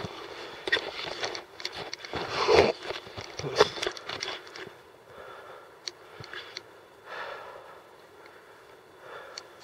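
Footsteps crunching and scuffing on loose rocky ground, an uneven run of crunches that is loudest a little over two seconds in and again about a second later.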